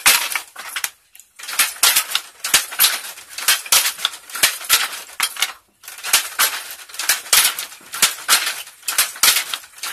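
Wooden handloom clattering as it weaves: a quick run of sharp wooden clacks and knocks from the shuttle and beater, several a second, stopping briefly about a second in and again a little past halfway.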